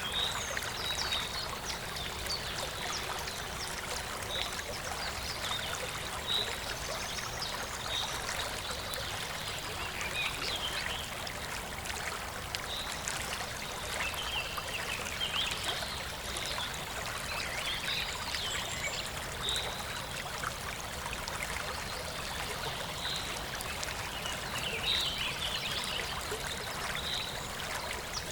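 Stream of running water, steady throughout, with birds chirping over it; one short high chirp recurs every couple of seconds among other scattered calls.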